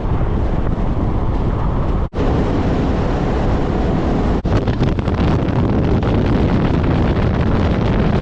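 Ram 2500 pickup driving, a steady rush of road and wind noise buffeting the microphone, dropping out briefly twice.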